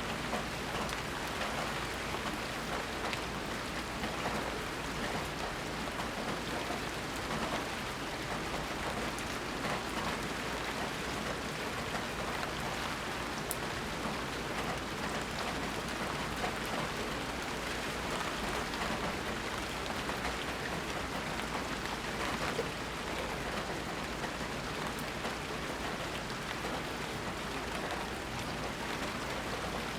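Steady rain falling, a dense even patter of drops on surfaces with no thunder.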